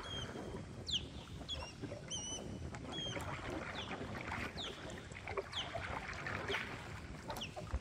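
Water washing along the hull of a redwood dugout canoe under way, a steady wash with low rumble. Over it a bird calls repeatedly with high, downward-slurred chirps, with a few wavering whistled notes about a second and a half to three seconds in.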